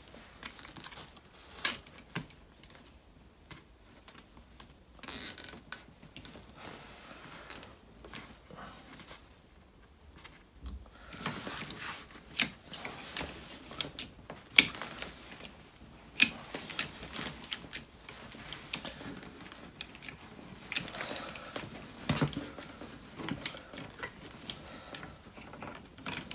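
Nylon cable ties being zipped tight around a rubber anti-roll bar bush, the ratchet rasping and clicking, with scattered clicks and knocks from handling the plastic bar-clamp jig.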